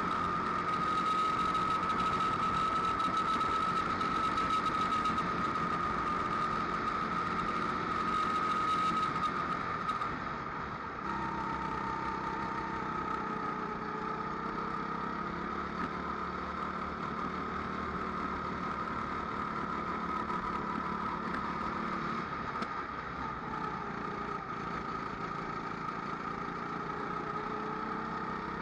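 Rental go-kart engine running at race speed, its pitch rising and falling gently with the throttle through the corners. About ten seconds in it drops off briefly as the driver lifts, then picks up again.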